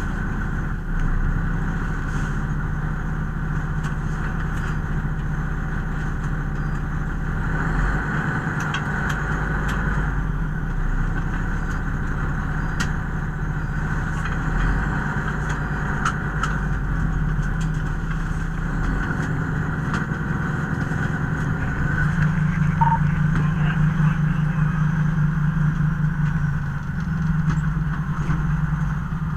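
Fire department squad vehicle's engine running with a steady drone while driving; the engine gets louder about two-thirds of the way through for a few seconds, then settles back.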